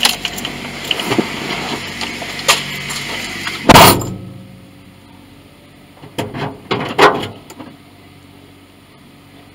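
Steady hiss of a pressure washer, then a car door shuts with a loud thump about four seconds in and the hiss is cut off to a low hum. A few knocks follow a couple of seconds later.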